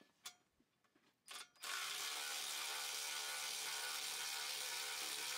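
A few sharp metallic clicks from the aircraft wheel dolly's hydraulic hand pump being worked. About a second and a half in, a loud steady drone with many held tones starts and stays level.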